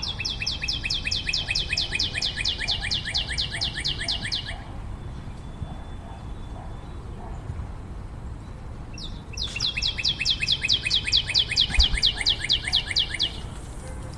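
A small bird's song: a long, rapid trill of about eight high, downslurred notes a second, lasting about four and a half seconds, given twice with a pause of about five seconds between. A steady low city rumble runs underneath.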